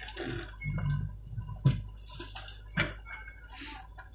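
A backhoe loader at work: scattered clicks and knocks from the machine, the sharpest a little under two seconds in, over a low steady hum.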